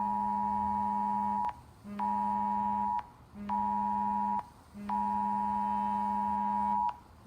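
Electronic alert tone of several steady pitches, sounding in four bursts of about one to two seconds broken by short gaps, each cut off with a click; a fifth burst begins at the very end.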